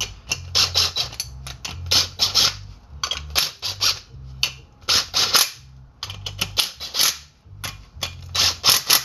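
Impact driver running the rotor-to-hub bolts down in a series of short bursts, one bolt after another in a star pattern.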